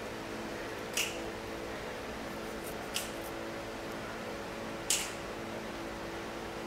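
Steady hum of an electric floor fan, with a short sharp snap three times, about two seconds apart.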